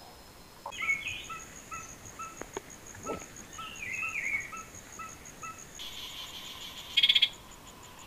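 Rainforest animal calls: a series of short chirps repeated about three times a second over a steady, high pulsing trill. There are a few sharp clicks in the first three seconds and a loud buzzing burst about seven seconds in.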